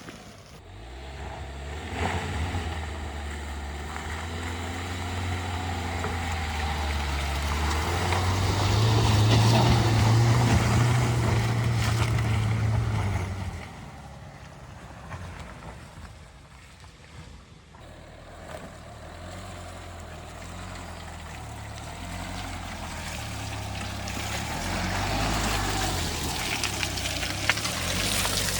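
Dacia Duster 1.5 dCi diesel engine pulling off road. The revs climb and the engine grows loud for several seconds, drop back suddenly about halfway through, then build steadily again toward the end.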